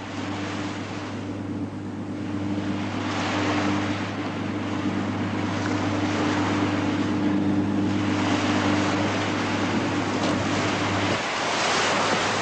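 Sea waves and wind washing in slow surges, with a steady low hum underneath that cuts off about eleven seconds in.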